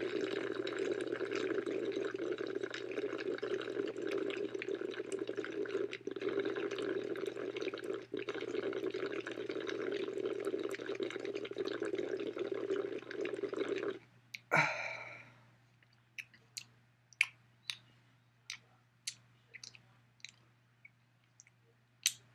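Water running in a steady rush that stops about 14 seconds in, followed by one louder splash-like sound and then sparse, irregular small clicks or drips.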